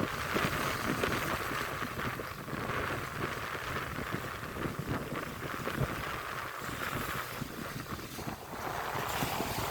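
Strong wind buffeting the microphone, with the sea's noise behind it: an unsteady, rumbling rush without a break.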